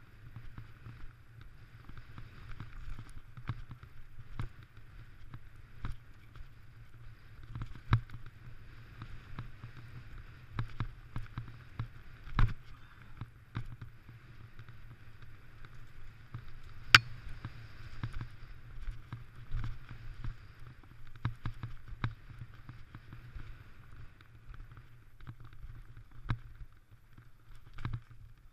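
Mountain bike ridden fast over a rough dirt singletrack: a steady low rumble and hiss of tyres on the trail, with irregular sharp knocks and rattles from bumps, one much louder than the rest past the middle.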